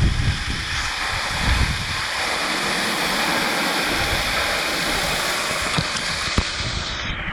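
Waterfall rushing, heard close up from beneath the falling water: a loud, steady roar of water, with low rumbling surges near the start and about a second and a half in.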